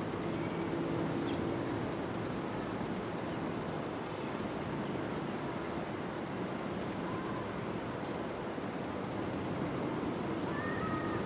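Steady rushing wind with a low hum underneath, and a few faint short bird calls about two-thirds of the way in and again near the end.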